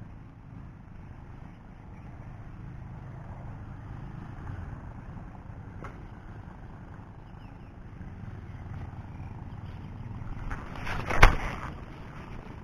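Steady low wind rumble on the microphone. Near the end, a swell of noise rises to a single loud, sharp knock.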